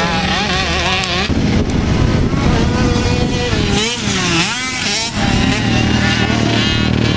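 Motocross dirt bike engines revving on a track, their pitch repeatedly rising and falling with the throttle and gear changes, over a steady low engine drone.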